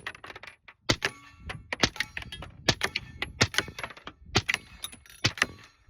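A string of suppressed 9mm pistol shots, about one a second, from a SIG P365 Fuse with an Obsidian suppressor firing 147-grain subsonic handloads. Light metallic clinking runs between the shots.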